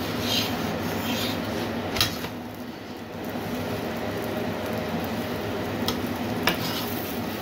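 Aloo paratha sizzling in oil on a cast-iron tawa, with scraping as metal tongs press it in the first second or so and sharp clicks of the tongs against the pan about two seconds in and twice near the end. A steady low hum runs underneath.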